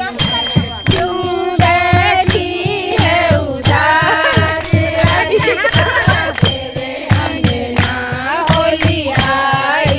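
Holi song: a voice singing a wavering melody over a drum struck in a quick steady beat, about three strokes a second, with jingling percussion like a tambourine.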